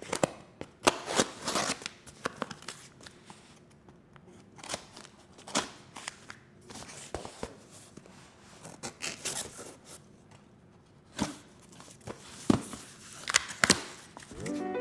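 A cardboard shipping box being opened by hand: scattered sharp clicks, scrapes and crinkles as the box and its packing are handled.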